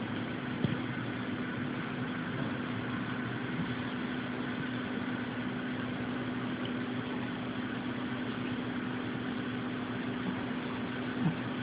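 A pet snoring with a steady, continuous rumble. A brief soft tap comes just after the start and another near the end.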